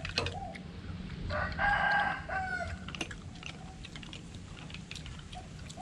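A rooster crowing once, about a second in, lasting about a second and falling in pitch at the end, with a few fainter short calls and some sharp clicks around it.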